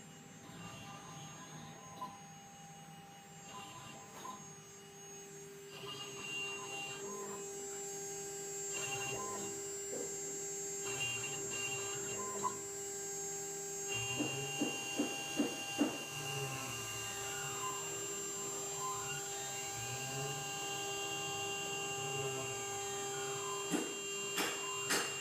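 Mini CNC engraving machine cutting a brass seal: the spindle runs with a steady hum and whine, and from about halfway a whine rises and falls as the head moves. Short runs of quick ticks come about halfway through and again near the end.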